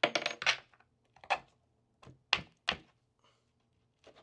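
Small skateboard hardware, bolts and parts, handled and set down on a wooden table: a quick cluster of clicks and taps, then a few single sharp taps spaced irregularly.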